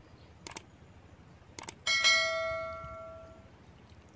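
Subscribe-button animation sound effect: two quick double clicks about a second apart, then a bright notification-bell ding that rings out and fades over about a second and a half.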